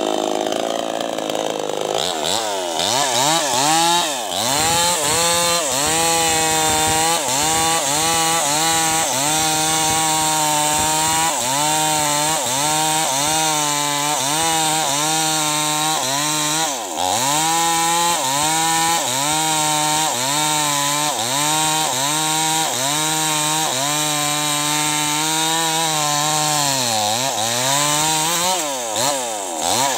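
New West 588 two-stroke chainsaw running at full throttle while bucking a teak log. Its engine note sags and recovers about once a second as the chain bites into the wood, with a few deeper dips where it bogs under load.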